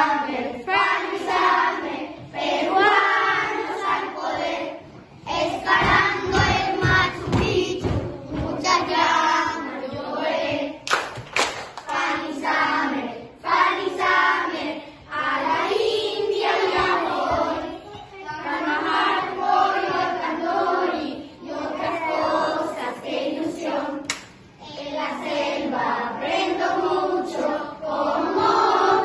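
A group of children singing an anthem together in loud, chant-like phrases, with hand movements, claps and a couple of sharp knocks.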